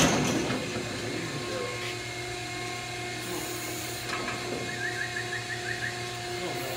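Hydraulic cattle squeeze chute: a loud metal clang right at the start, then the chute's hydraulic unit humming steadily. A short run of faint chirps comes about five seconds in.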